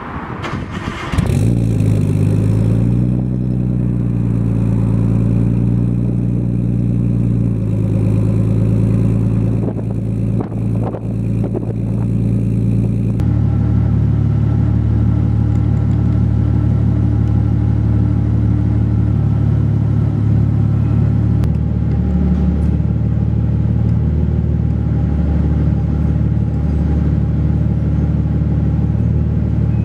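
Nissan Skyline R32 GTS-t's turbocharged RB20 straight-six, heard at the exhaust, comes in sharply about a second in, its revs rising briefly and then settling into a steady idle. Partway through it runs on in an underground car park.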